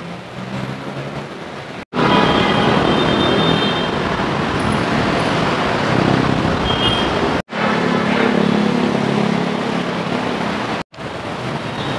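Busy city street traffic, cars, motorcycles and buses running past, in short clips that cut off abruptly three times.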